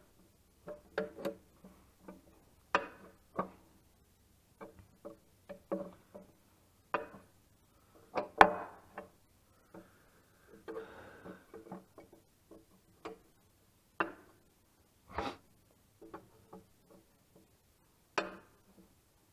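Hand ratchet wrench clicking in short, irregular strokes on the nuts holding the dual wheel to the tractor, with brief metallic clinks and knocks between strokes.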